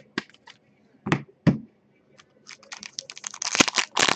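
Light clicks, then two dull thuds about a second in, then a foil trading-card pack wrapper crinkling and crackling as it is handled and torn open, growing louder toward the end.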